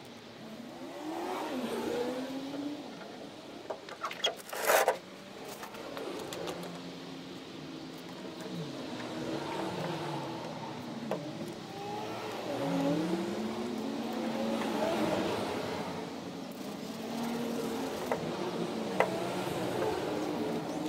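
A motor engine running nearby, its pitch rising and falling again and again as it revs up and down. A loud clatter comes about four to five seconds in.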